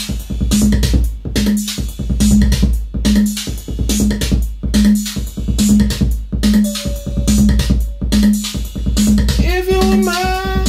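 Detroit-style techno played live on a Roland TR-808 drum machine and a Roland Jupiter-6 synthesizer: a steady drum-machine beat under a repeating low synth pulse about every 0.6 seconds. Near the end a sustained melodic line comes in, sliding between notes.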